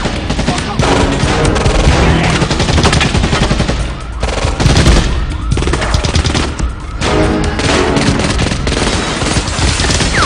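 Heavy automatic gunfire: rapid, overlapping bursts and shots from a submachine gun and other guns in a film shootout, with a music score underneath.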